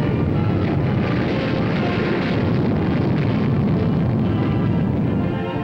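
Loud, steady rumbling jet roar with background music mixed beneath it.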